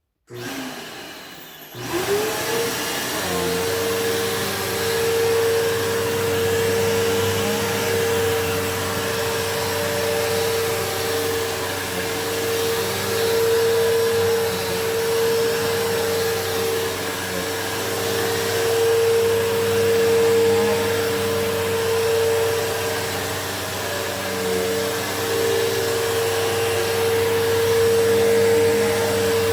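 Bissell PowerForce Bagless upright vacuum (model 6579-3) switched on about two seconds in, its motor spinning up in a rising whine, then running steadily with a high hum that wavers a little as it is used.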